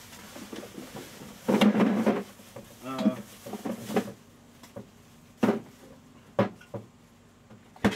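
Handling noises of objects set down and moved on a table: a few short sharp knocks and clatters, the last and loudest near the end, with a louder rustling, clattering noise between about one and a half and two seconds in.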